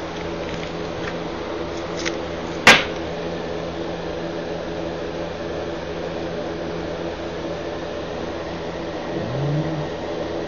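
Steady machine hum with several low steady tones, like a fan or appliance running in the room, broken by one sharp click about two and a half seconds in and a fainter click just before it.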